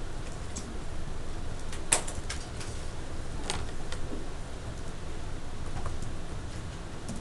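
Classroom room noise: a low steady hum with scattered small clicks and taps, the sharpest about two seconds in, from students working at their desks.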